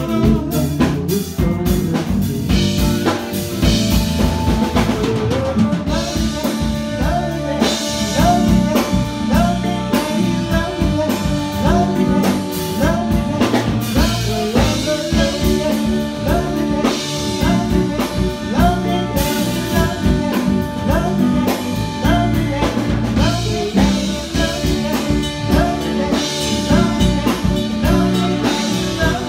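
Live band playing: a drum kit keeping a steady beat under bass and chords, with a melodic lead line over them.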